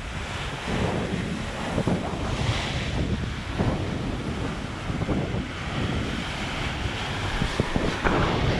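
Ocean surf breaking and washing over rocks, a continuous churning hiss that swells about two and a half seconds in and again near the end, with wind buffeting the microphone.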